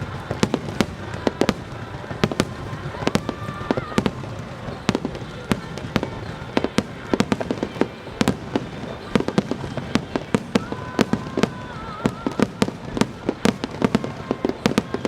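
Starmine fireworks display: a rapid, unbroken barrage of shell bursts, with sharp bangs and crackles several times a second over a steady low rumble.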